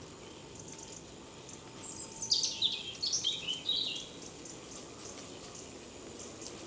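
A small bird singing a quick run of high, rapidly changing chirps for about two seconds, starting about two seconds in, over a steady background hiss.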